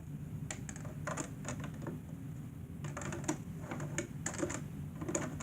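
Irregular clicks and knocks as the homemade box fan's cage is worked back into place over the fan, over a steady low hum.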